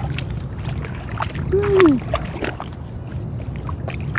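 Small splashes and scattered clicks from a rainbow trout being played in on a fly rod, over a steady low rumble. About two seconds in, a man's voice gives one short exclamation that rises and then falls, the loudest sound.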